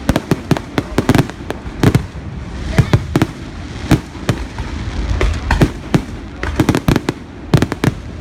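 Aerial fireworks bursting: a rapid, irregular string of sharp bangs, often several in quick succession, over a continuous low rumble.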